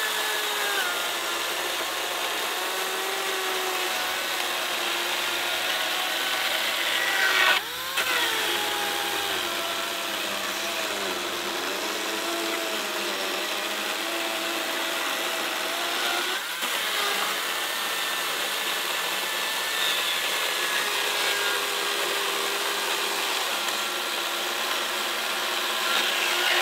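Makita battery-powered electric chainsaw cutting through a dense lodgepole pine log: a steady motor whine whose pitch sags as the chain bites into the wood and climbs again, with two brief breaks about 8 and 16 seconds in.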